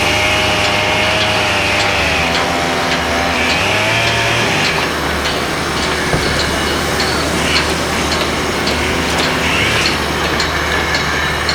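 Construction-site noise: a power tool or engine whines at a wavering pitch for the first few seconds, then gives way to a loud din of machinery with scattered knocks and clanks.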